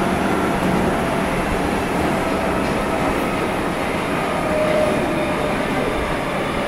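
Osaka Metro 30000 series subway train running between stations, heard inside the car: a steady rumble of wheels on rail, with faint whining tones over it, one a little stronger about four to five seconds in.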